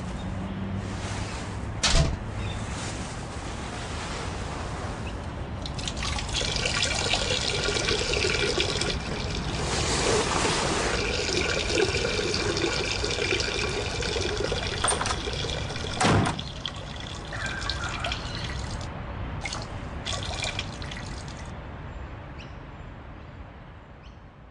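A strong stream of urine splashing into toilet bowl water from a woman standing up with a female urination funnel. It swells about six seconds in, runs steadily, then fades near the end, with a sharp knock near the start and another about two-thirds of the way through.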